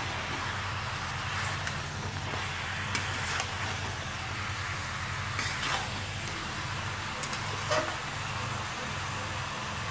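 Raw mutton pieces sizzling in hot oil in a kadhai while a spatula stirs them, with a few short scrapes and clicks of the spatula against the pan over a steady low hum.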